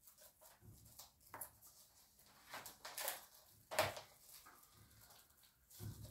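Plastic wrapping crinkling and tearing in irregular bursts as a DVD case is unwrapped by hand. The loudest crackle comes a little under four seconds in.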